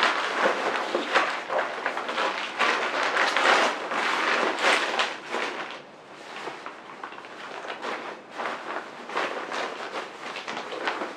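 Fabric rustling and crumpling as a folded Elinchrom Rotalux Deep OctaBox softbox and its white diffuser are stuffed into the softbox's carry bag. The handling is louder for the first half and softer after about six seconds.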